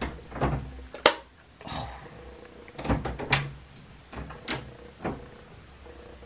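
Handling noise from a phone carried about close to the body: scattered knocks and rustles, with hair brushing over it. The loudest knock comes about a second in.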